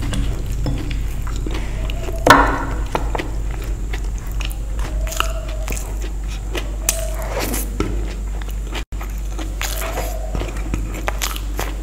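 A person eating Indian street snacks such as panipuri, samosa and ghughni chaat: one loud bite about two seconds in, then chewing with small wet mouth clicks.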